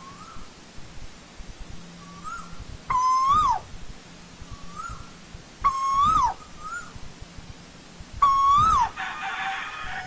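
Asian koel calling: three loud, clear notes about three seconds apart, each held and then swooping up and sharply down. Fainter, answering notes of the same shape fall between them, and a brief raspy sound follows the last loud call.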